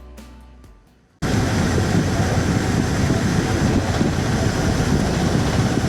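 Background music fades out over the first second, then an abrupt cut to loud, steady engine and airframe noise inside the cabin of a Boeing 787 airliner, strongest in the low rumble.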